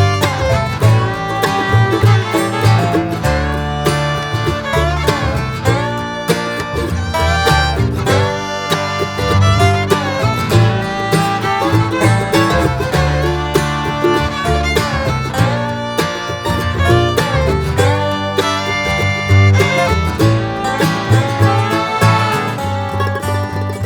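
Background music in a bluegrass or country style, with fiddle over quickly plucked strings such as banjo and guitar, at a steady level.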